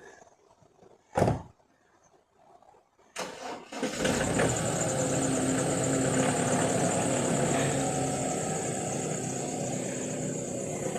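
Quadcopter drone's electric motors starting up about three to four seconds in, then spinning steadily with a high whine and a low hum.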